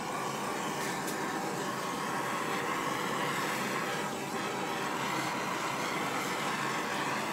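Large handheld gas torch burning with a steady flame hiss while it is played over wet acrylic paint.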